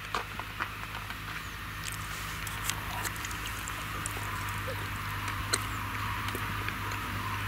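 Steyr tractor's diesel engine running steadily while it pulls a reversible plough across the field, a constant low drone with scattered light clicks and ticks over it.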